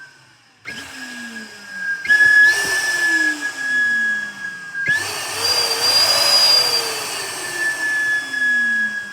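Steam whistle blown by an electric balloon pump: a loud, steady high-pitched whistle with air hiss. It comes on under a second in and surges louder about two and five seconds in, the last blast breathier with a wavering second tone.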